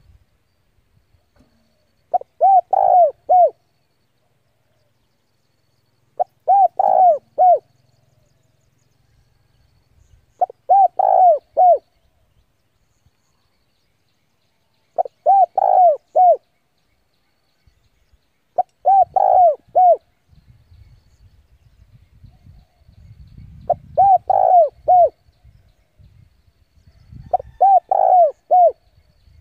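Spotted dove (decoy bird) cooing: seven short, evenly paced phrases of three or four notes each, about one every four seconds. This is the decoy's call, used to draw wild doves in to fight.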